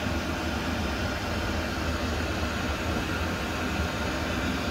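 Portable 12 V, 8 kW Chinese diesel air heater running at full output, its fan and burner making a continuous, even whir.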